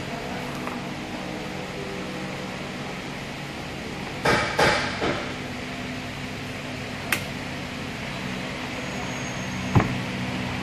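Metal clanks and knocks from the internals of a ZF 6HP28 automatic gearbox being handled inside its aluminium case: a quick cluster of clanks about four seconds in, a single click a little later and another knock near the end. A steady low hum runs underneath.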